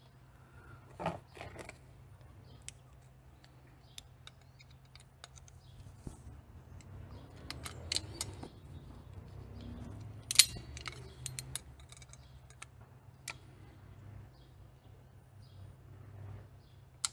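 Scattered small clicks and clinks of pliers being handled and clamped as a part is bent, with one sharper click about ten seconds in, over a faint steady low hum.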